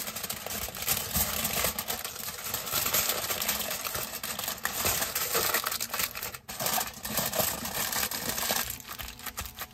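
Aluminum foil crinkling as hands fold and crimp it shut around a food packet: a dense run of small sharp crackles with a brief pause about six and a half seconds in.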